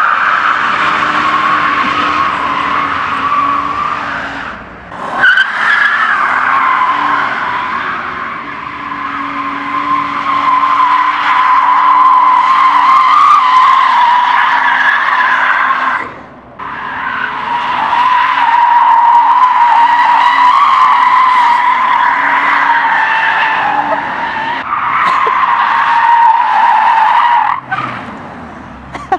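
Tyres of a rear-wheel-drive BMW E39 wagon squealing loud and long as the car drifts sideways, with the engine running under it. The screech wavers in pitch and breaks off briefly three times: about four seconds in, about halfway through and near the end.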